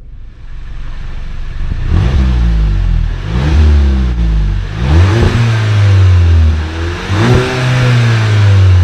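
Volkswagen Scirocco 2.0 TSI turbocharged four-cylinder engine revved through its exhaust with the car standing still: after a quiet first second it comes up from idle and is blipped about three times, the pitch rising and falling with each rev.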